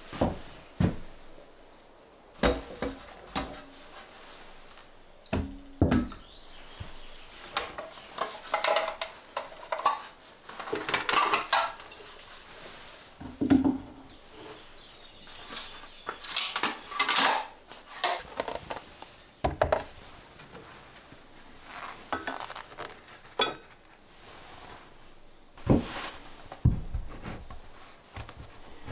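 Metal kitchenware, such as a kettle and pots, clinking and clattering as it is handled and set on wooden shelves and a counter, in irregular bursts with some ringing. Near the end there are a few duller knocks as a wooden bowl is set down.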